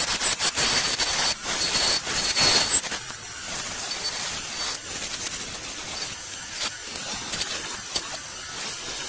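Turning tool cutting a spinning persimmon-wood handle on a wood lathe: a steady hiss of wood being cut away as shavings, with small ticks. The cut is heaviest in the first three seconds, then lighter and steadier.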